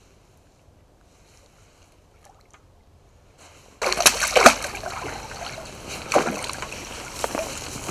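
A hooked mirror carp splashing at the surface as it is drawn in to the bank. The splashing starts suddenly about four seconds in, after near quiet, with several loud splashes.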